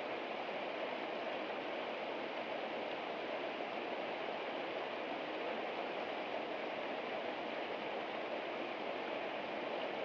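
Small spring trickling out of a rock crevice and splashing over stones into a shallow pool: a steady, unbroken rush of running water.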